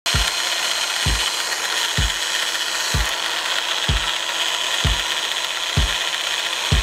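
High-speed mini drill on a drill-press stand running steadily with a high whine as it bores holes through a copper-clad circuit board. A kick-drum beat from background music thuds about once a second.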